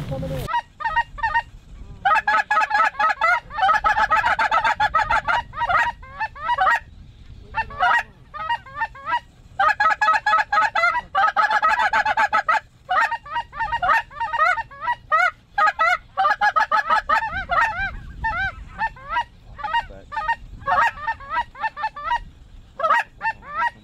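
Geese calling: rapid, repeated honks and clucks in runs of a few seconds, broken by short pauses.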